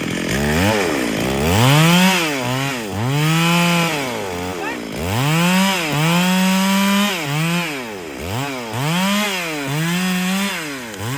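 Two-stroke chainsaw engine revved up and down over and over, roughly once a second, its pitch rising to full throttle and dropping back each time.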